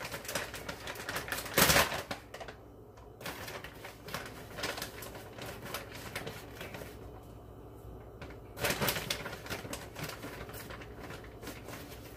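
Resealable plastic bag of almond flour being pulled open and handled: crinkling, rustling plastic with quick crackles, loudest about a second and a half in and again around nine seconds.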